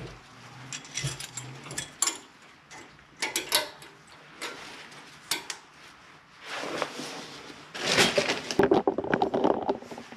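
Metal clinks and rattles of tools and brake hardware being handled during front caliper work: irregular clicks, busiest and loudest in the last few seconds.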